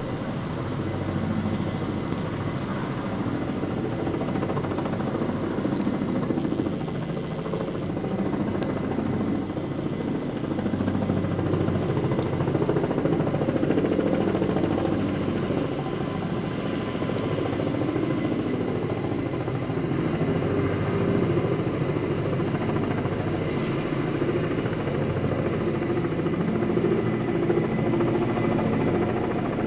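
Kamov Ka-32A11BC coaxial-rotor helicopter running, its twin turboshaft engines and rotors making a dense, steady rapid beat that swells a little in level now and then.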